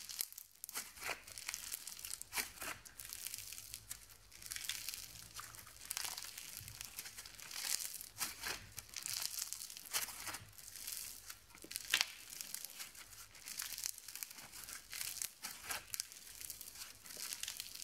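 Bead-filled pearl clay being squeezed and pulled apart in the hands, its tiny foam beads giving off a faint, irregular crackling and crinkling.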